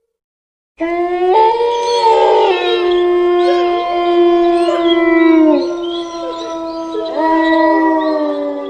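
Howling: several long, overlapping howls that begin abruptly about a second in, each held at a steady pitch and sliding down as it ends, with a fresh set of howls starting near the end.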